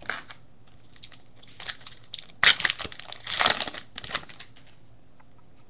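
Wrapper of a 2007 SP Rookie Edition baseball card pack being torn open and crinkled, in irregular bursts, loudest about two and a half seconds in.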